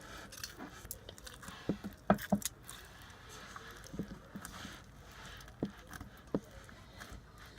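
Slime being kneaded and stretched by hand, giving scattered small clicks and pops, several close together about two seconds in and a few more spread through the rest.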